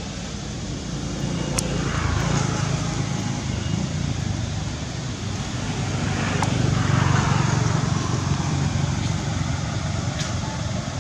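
Low rumble of passing motor traffic, swelling twice, about two seconds in and again around seven seconds, with a few sharp clicks.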